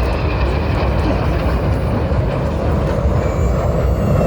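Jet engines of BAE Hawk T1 aircraft passing overhead: a loud, steady rumble of jet noise, with a faint high whine coming in near the end.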